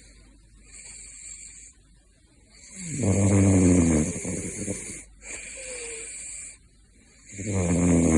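Caracal snoring in its sleep. Two loud, rough snores come about four and a half seconds apart, with softer breaths between them.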